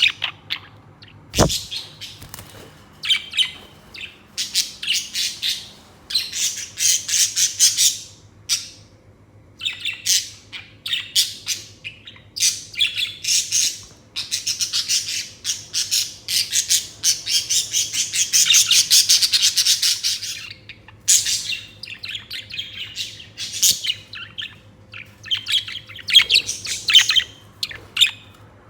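Budgerigar chirping and chattering in quick bursts, running into a longer warbling stretch of rapid chatter in the middle. A single sharp knock sounds about a second and a half in, over a faint steady low hum.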